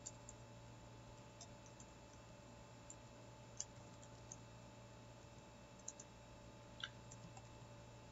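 Faint computer keyboard keystrokes, single clicks scattered irregularly a second or so apart, over a steady low hum.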